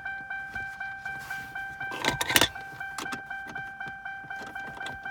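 A 2006 Lincoln Town Car's interior warning chime dinging over and over at a rapid, even rate, as it does with the key in the ignition and a door open. A brief louder rattle of handling comes about two seconds in.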